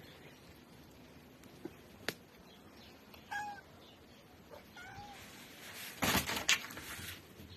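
Domestic cat meowing twice, short calls about three and about five seconds in. A sharp click comes about two seconds in, and near the end a louder rustling noise of about a second is the loudest sound.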